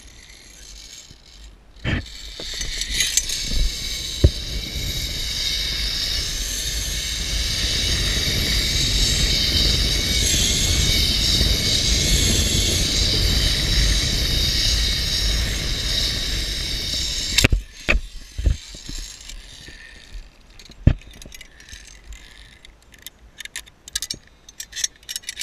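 Zipline trolley pulley running along a steel cable: a steady loud whirring hiss with a low wind rumble, building over about fifteen seconds. It ends in a sharp knock as the trolley stops at the landing platform. Then come scattered metallic clicks and clinks of carabiners and lanyard hardware being handled.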